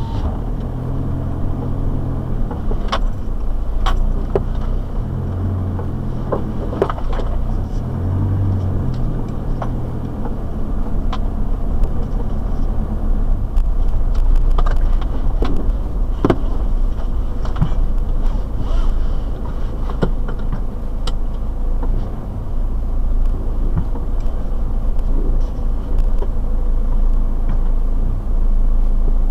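Four-wheel drive's engine running with a steady low rumble, heard from inside the cabin while driving a rough dirt track, with scattered knocks and rattles as the vehicle goes over bumps.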